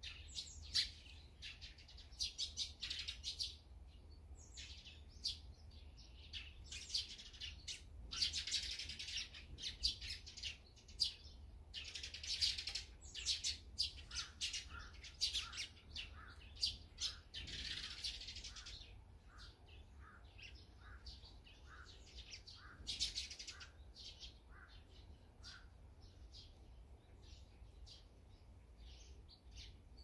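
Eurasian tree sparrows chirping in a busy, overlapping chatter; in the last third it thins to a steady run of short chirps, about three every two seconds.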